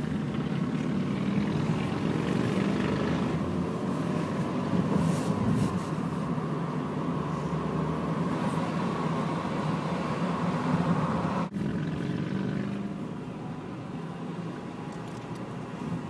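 Steady engine and road noise of a car heard from inside its cabin while driving, a continuous low hum with tyre rush. The sound cuts out sharply for an instant about two-thirds through and runs a little quieter afterwards.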